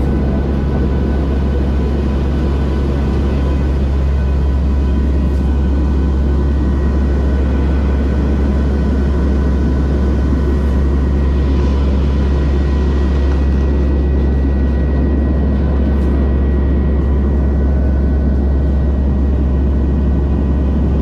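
Cabin drone of a NOAA WP-3D Orion's four turboprop engines in flight: a loud, steady low hum with a few thin, steady high whining tones over it.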